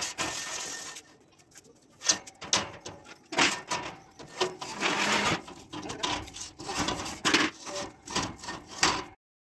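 Irregular clanks, knocks and scrapes of steel pipes and bars being handled and set onto a metal mounting frame. They come in uneven bursts, and the sound cuts off suddenly near the end.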